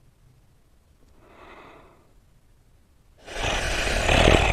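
An animal breathing through its nose: a faint breath about a second in, then a loud, long snorting exhale starting about three seconds in.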